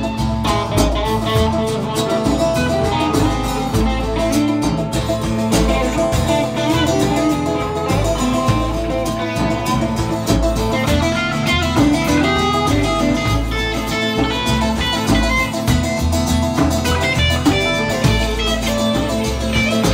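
Live rock band playing an instrumental section: guitars over bass and drums, with no singing.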